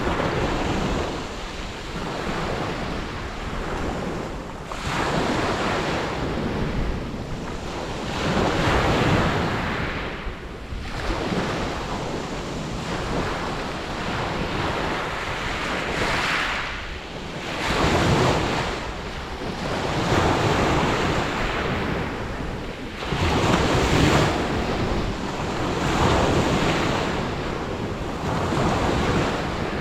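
Mediterranean sea waves breaking and washing on a beach, the surf swelling and ebbing every few seconds, with wind on the microphone.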